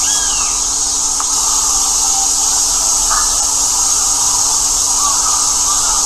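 Steady high-pitched hiss over a faint low hum, with a few faint, thin bird calls: a short rising-and-falling note at the start, another about three seconds in and one near the end.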